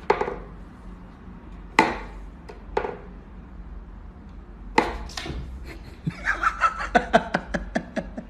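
Wooden knocks and clacks from a wooden whack-a-mole cat toy box as its pegs are worked and a cat paws at the holes: a few scattered knocks, then a quick run of knocks, several a second, over the last two seconds.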